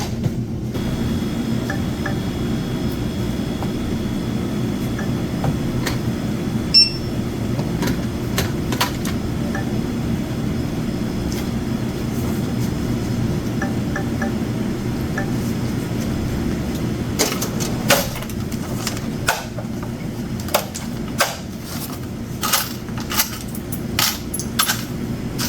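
A steady low mechanical hum, with a run of sharp clicks and knocks starting about 17 seconds in.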